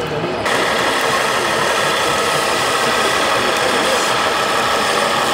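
A radio-controlled model vehicle's electric motor and gears running: a steady mechanical whir and rattle that starts abruptly about half a second in.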